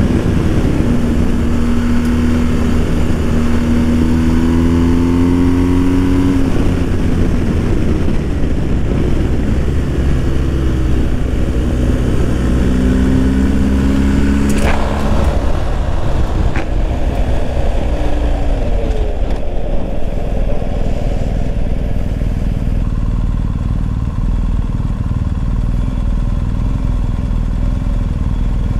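BMW R1250 GS boxer-twin engine at low riding speed, its pitch rising and falling as the throttle is opened and closed, over steady wind rumble on the microphone. A sharp click about halfway through.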